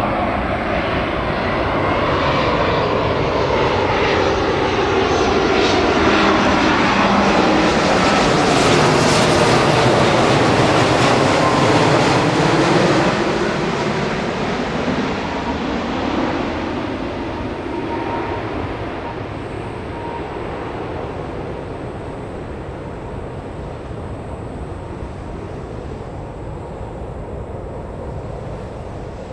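Jet airliner on landing approach passing low overhead. The engine noise builds to a loud peak about ten seconds in, with whining tones sliding down in pitch, then falls away after about 13 seconds to a fading distant rumble.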